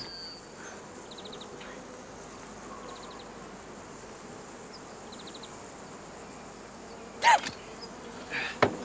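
Insects chirping in short bursts of quick high ticks, about every two seconds, over a steady outdoor hiss. About seven seconds in there is one short loud sound that falls in pitch.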